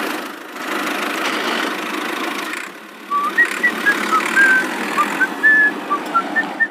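A small vehicle engine or motor running steadily, dropping briefly about three seconds in, then carrying on under a string of short, high whistling chirps.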